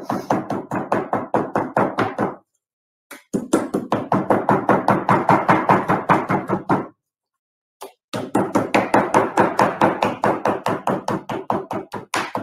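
A woman laughing hard in three long bouts of rapid, evenly repeated 'ha' pulses, with short silent pauses for breath between them.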